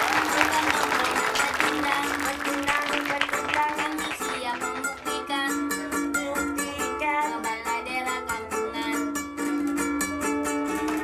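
Ukulele strummed in a steady rhythm of chords, the strums sharpest and most regular from about four seconds in.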